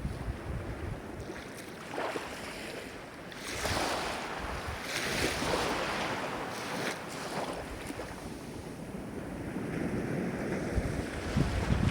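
Ocean waves surging and washing in a steady hiss, with one swell building a few seconds in and another rising near the end.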